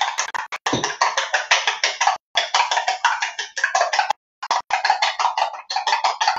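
A utensil beating a mixture in a bowl: rapid clinking strokes, about seven a second, in runs broken by brief pauses about two seconds and four seconds in.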